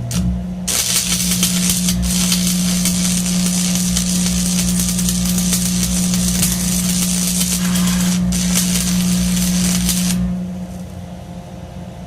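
Lincoln Electric stick welder cranked to maximum and used to cut through a steel I-beam: the arc crackles and sputters steadily for about ten seconds, with a brief break near eight seconds, over a steady low hum, then stops. The welder blames old rods left in the shop all winter for the cut going poorly.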